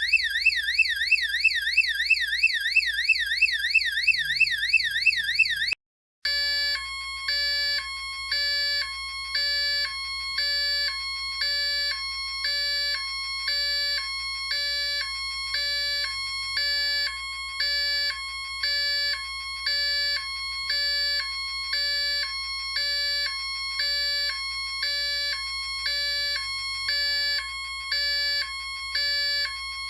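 Electronic emergency-vehicle siren in yelp mode, a fast repeating rising-and-falling whoop, which cuts off just under six seconds in. After a brief silence it switches to hi-lo mode, the ambulance pattern: two tones alternating, each held about half a second.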